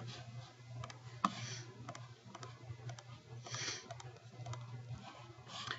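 Faint, irregular clicks of a computer mouse and keyboard, over a steady low hum.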